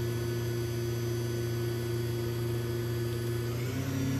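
Spindle of a Hardinge VMC-600 vertical machining center running steadily at 7,000 rpm, a steady hum. About three and a half seconds in its tone changes as the spindle steps up to the next speed, 8,000 rpm.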